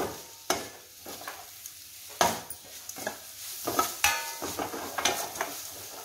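A spoon stirring and scraping fried onion, chillies, curry leaves and grated coconut in a stainless steel pan, with sharp scrapes and clinks against the metal every second or so over a light sizzle.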